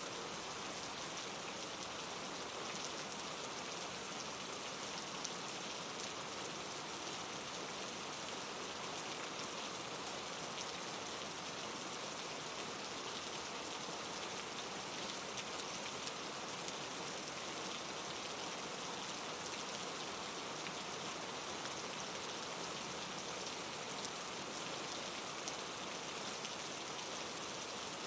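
Steady rain falling, with a dense even patter of drops on a surface.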